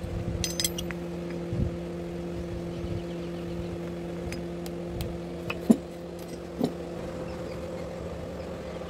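Steady hum of a running electric motor, with a few short metal knocks and clinks of tongs and tools against the anvil; the loudest knock comes a little before six seconds in.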